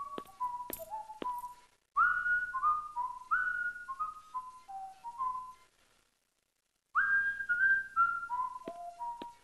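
Whistled tune in short phrases of clear single notes, each phrase starting high and stepping down in pitch. The phrases break off abruptly twice, and light sharp ticks fall between some of the notes.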